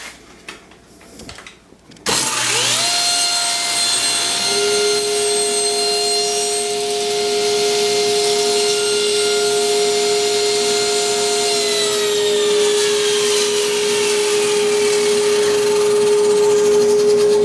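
Table saw motor switched on, whining up to speed with a sudden start. A second steady motor tone joins about two seconds later, and from about the middle the first tone slowly winds down in pitch while the second keeps running.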